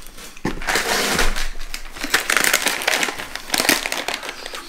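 Plastic snack bags crinkling and rustling as they are handled and picked up, with a dense run of crackles.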